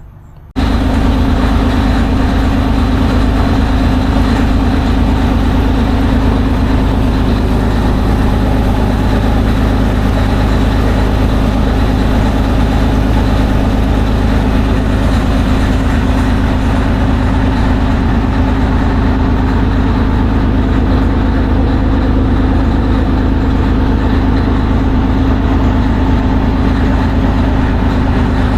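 A ferry's diesel engine running loud and steady with a heavy low rumble, starting abruptly about half a second in.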